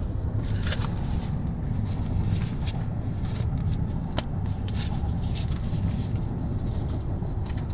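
Steady low road and drivetrain rumble inside the cabin of a 2019 GMC Yukon XL Denali cruising, with light rustling and small clicks of things being handled.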